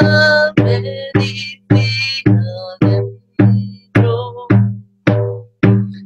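Large rawhide frame drum beaten with a padded beater in a steady beat, a little under two strokes a second, each stroke a deep boom that rings briefly. A woman's voice chants over the drum in the first half, then drops away, leaving the drumbeat.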